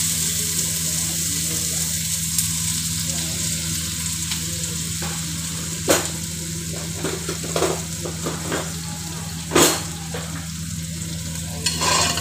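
Onions frying in hot oil in an aluminium pot, sizzling steadily, with a few knocks of a spoon against the pot, the loudest a little over halfway through.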